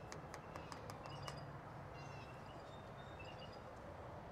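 Faint outdoor background with small birds chirping on and off over a low steady hum, and a quick run of about half a dozen light clicks in the first second or so.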